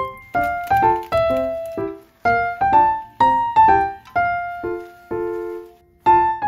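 Background piano music: a melody of single struck notes, each ringing and fading, about two to three a second, with a short break a little before the end.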